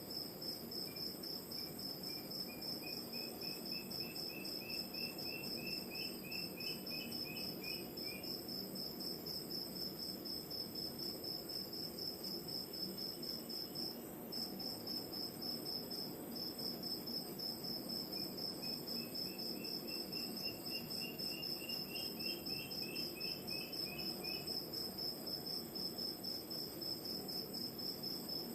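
Crickets chirping in a fast, steady pulse, with a night bird calling twice in a run of quick notes that climb slightly in pitch, over a low wash of distant ocean surf.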